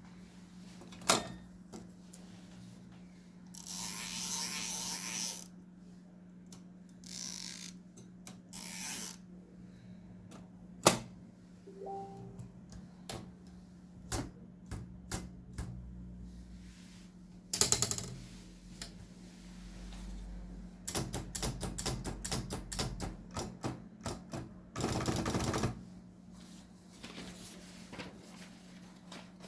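Olympia SM3 portable manual typewriter being worked: single sharp clacks and several longer rasping mechanical noises, with a quick run of keystrokes about two-thirds of the way through.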